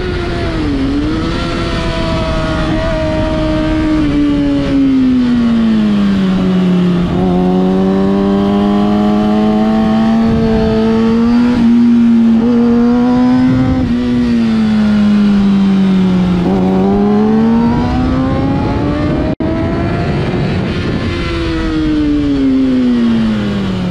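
2013 Kawasaki Ninja ZX-6R 636's inline-four engine heard onboard at track speed, its note falling as it slows into corners, holding steady mid-corner, then rising again under throttle, over steady wind rush. It briefly cuts out for an instant about 19 seconds in, and its pitch falls steadily near the end.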